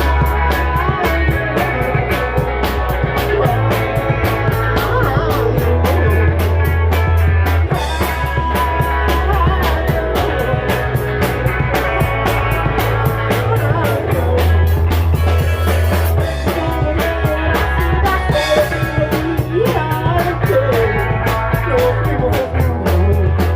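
Rock music: a drum kit keeps a fast, steady beat over bass notes that change every couple of seconds, with guitar and a wavering melodic line on top.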